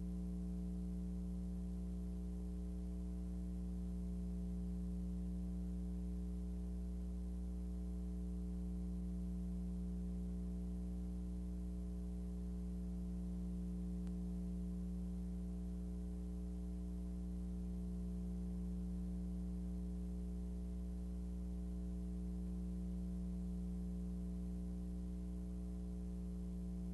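Steady electrical hum: a low buzz made of several unchanging tones, with no other sound over it.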